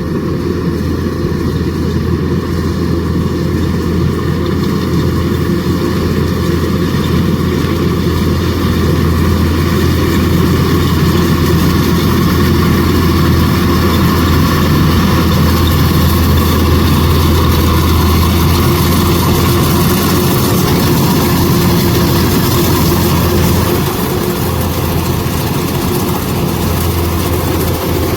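Kubota DC105X combine harvester's diesel engine and threshing machinery running steadily under load while harvesting rice, a constant low drone that swells a little through the middle and eases back slightly near the end.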